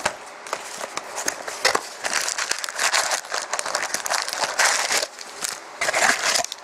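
Foil-wrapped 2013-14 Panini Contenders hockey card packs crinkling and rustling against the cardboard as they are pulled out of the hobby box, with many small irregular crackles.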